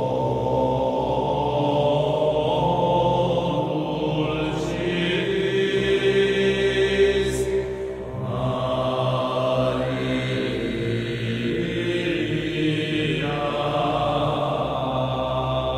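Background music of slow sung chant, long held notes that shift every few seconds.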